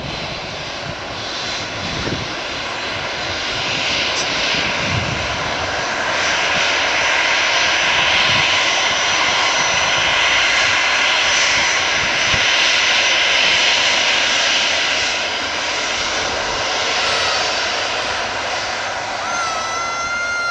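Jet engines of a Boeing 737 airliner running as it taxis: a steady jet roar with a faint whine. It swells louder in the middle and eases toward the end.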